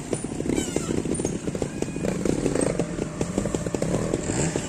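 Trials motorcycle's single-cylinder engine running at low speed, the throttle blipped so the revs rise and fall as the bike picks its way through the section.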